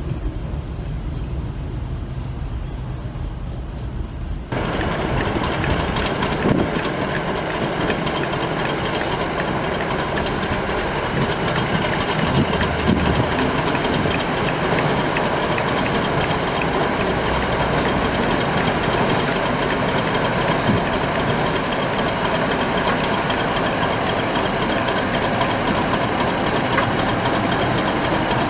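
Diesel locomotives running on the line, with the drone of their engines and the clatter of wheels on rail joints. The sound jumps abruptly louder about four and a half seconds in.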